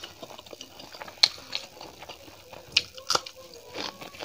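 Close-miked eating sounds: wet chewing and squelching of rice mixed with curry by hand, with about four sharp wet clicks spread through.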